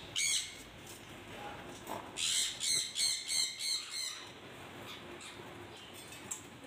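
A parrot squawking: one short high call at the start, then a quick run of about six short, high squawks, roughly three a second, about two seconds in.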